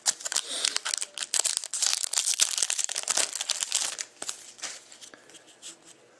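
Wrapper of a hockey trading-card pack crinkling and tearing as it is opened by hand, then the cards rustling as they are pulled out. The crinkling is dense for about four seconds, then thins to a few light ticks.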